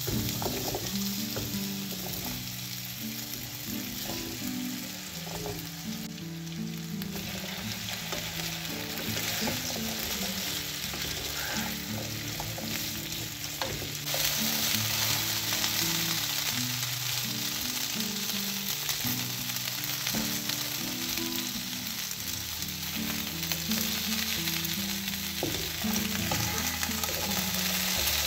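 Diced potatoes frying in hot oil in a frying pan, a steady sizzle that grows louder about halfway through, as a wooden spatula stirs them.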